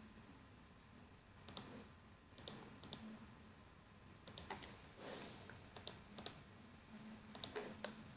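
Faint computer mouse clicks and keyboard keystrokes, short sharp clicks coming a few at a time, several in quick pairs, over a faint low hum.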